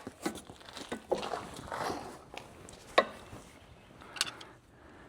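Scattered clicks and knocks of hand tools being handled, the sharpest about three seconds in, with quieter rustling between.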